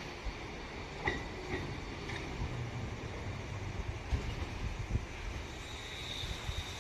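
Sanyo Electric Railway train running on the track: a steady low rumble, with a few clicks about half a second apart starting about a second in, and a faint high tone near the end.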